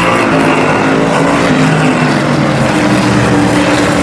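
Race trucks' engines running hard as they pass on the track, several engine notes overlapping and shifting slightly in pitch.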